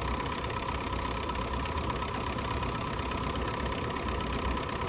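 BERNINA 475 Quilter's Edition sewing machine running at a steady speed, sewing a decorative asterisk stitch with a wing needle through fabric. A steady motor whine sits under the rapid needle strokes.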